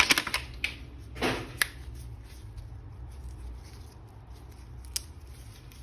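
A plastic action figure being handled: a short rustle about a second in and a couple of sharp single clicks, over a low steady hum.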